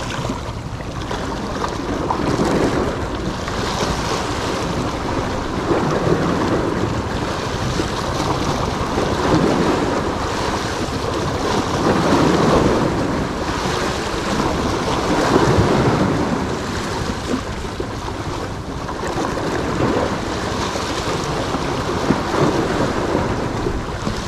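Small sea waves breaking and washing against shoreline rocks, the surf swelling and easing every few seconds.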